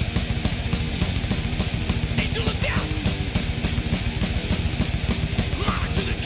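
Heavy metal music with a fast drum beat and guitar, laid over the flight footage.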